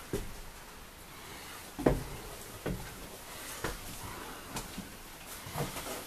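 Footsteps on the floor of a school bus: dull thumps about once a second, the loudest about two seconds in.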